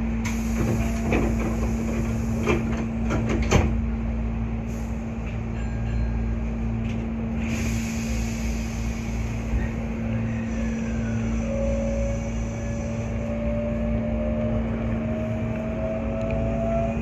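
Hankyu 8300 series electric train heard from inside the front car while standing still, with a steady low electrical hum and a cluster of sharp clicks and knocks in the first few seconds. About ten seconds in the train pulls away, and a rising whine from the traction motors begins.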